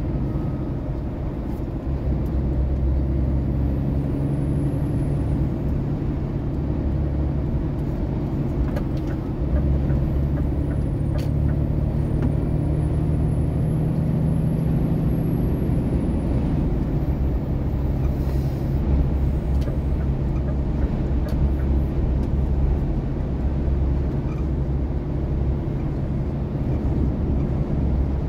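Steady low engine drone and road noise heard from inside the cab of a heavy vehicle cruising on a highway.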